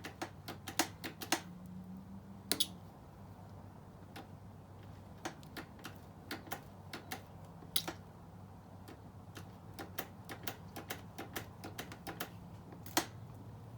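Light, sharp clicks in quick irregular runs, several close together then pauses, from hands working on a motorcycle's rear brake during bleeding. A faint low steady hum lies underneath.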